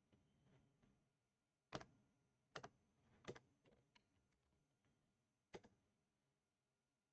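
Faint, sparse clicking of computer controls against near silence: four short clicks a second or so apart, two of them doubled, then a last one near the end.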